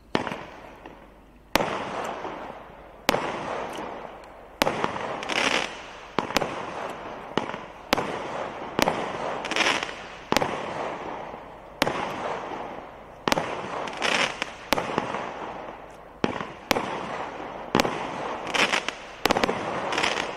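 Jonathan's Fireworks Gala selection-box firework firing shot after shot, about fifteen sharp bangs roughly every one and a half seconds. A noisy hiss of the bursting stars fills the gaps between the bangs.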